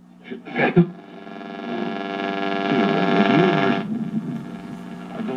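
Antique Victor R-39 tube radio being tuned between stations: a brief snatch of a broadcast, then a buzzing hum that swells with warbling tones as the dial passes through, fading about four seconds in.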